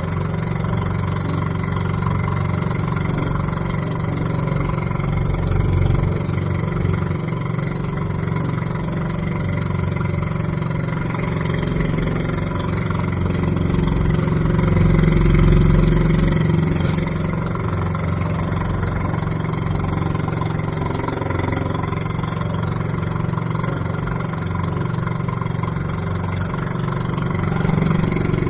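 A small fishing boat's engine running steadily under way, slightly louder about halfway through, over the rush of wind and rain on rough water.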